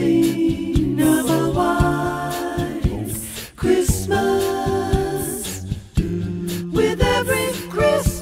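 Background music: a cappella voices singing in harmony, holding chords that change every second or so.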